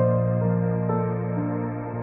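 Slow ambient music: held notes changing about every half second over a steady low drone.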